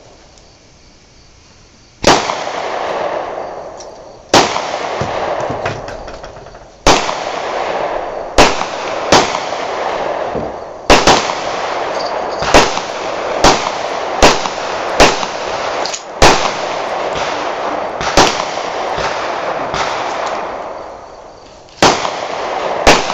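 A series of about fourteen single gunshots, fired one at a time at an uneven pace of roughly one every one to two seconds. The first comes about two seconds in, and each shot leaves a long echoing tail across the range.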